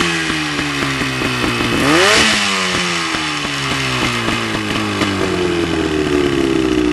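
25-horsepower outboard motor running and being revved: the pitch drops from a blip at the start, climbs again in a short rev about two seconds in, then slides slowly back down toward idle.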